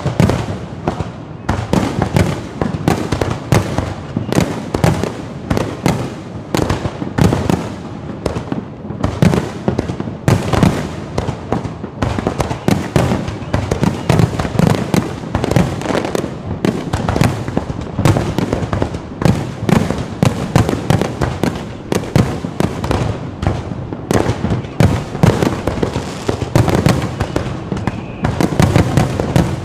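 Fireworks display: a dense, continuous barrage of overlapping bangs, many a second, with no let-up.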